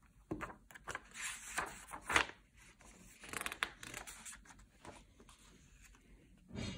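Paper pages of an old hardbound pocket atlas being turned and flipped by hand, in a run of dry rustles with the loudest about two seconds in and another near the end.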